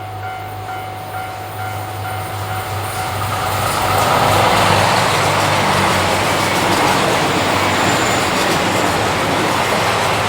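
Railway crossing warning bell ringing about twice a second, then a diesel train passes the crossing: its noise swells from about three seconds in and stays loud, covering the bell.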